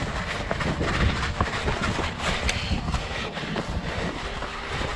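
Running footsteps on a dirt path covered in leaf litter, a quick run of irregular thuds with rustling and small snapping clicks. Wind buffets the microphone of the moving body-worn camera.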